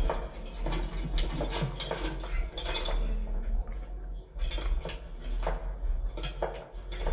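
Dishes and cutlery clinking and clattering, a quick run of short, sharp knocks and clinks over a steady low rumble.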